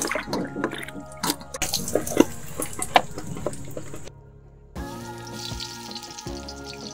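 Hands swishing and splashing mushrooms in a steel bowl of water as they are washed, with irregular sloshes and clicks for about four seconds. After a short break, hot oil starts sizzling in a wok with the mushrooms in it, a steady hiss. Background music plays throughout.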